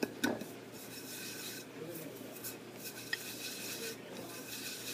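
Hands rubbing and spreading flour over a plate to coat it: a dry, scratchy rubbing in irregular strokes, with a light knock just after the start.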